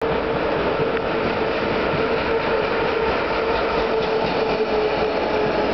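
SBB Cargo Re 10/10 electric locomotive pair (an Re 4/4 and an Re 6/6 coupled) hauling a freight train past at speed: a steady rush of wheel and rail noise. A steady mid-pitched tone runs over it, dipping slightly in pitch and fading just before the end.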